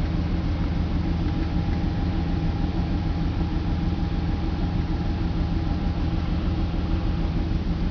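BMW 325's M54 2.5-litre inline-six idling steadily from a cold start, with a faint steady whine above the engine note. The owner reports it misfiring on cylinders 3 and 5, sometimes 4, until it warms up.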